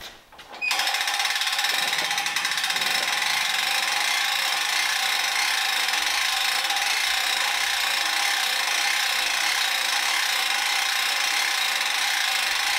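The crane's boat winch winding in steadily, a continuous mechanical whirr, as it lifts a sheet of mild steel plate hung from two permanent lifting magnets. It starts just under a second in and holds at an even level.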